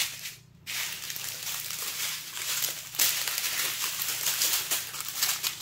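Thin clear plastic zip bags of diamond painting drills crinkling and crackling as a strip of them is handled, starting after a brief quiet moment.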